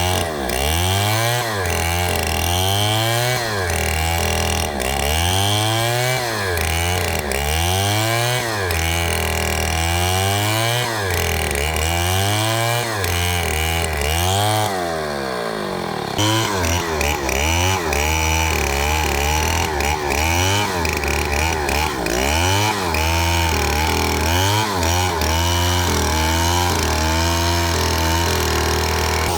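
Two-stroke chainsaw cutting into a palm trunk, its engine pitch rising and falling about once a second as it works through the wood. About halfway through the sound changes abruptly to a higher, steadier run with quicker small dips.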